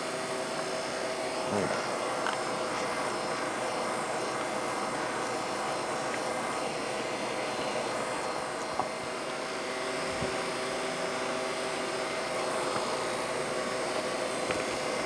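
A steady motor hum from a running appliance, with a few faint knocks, one sharper about nine seconds in.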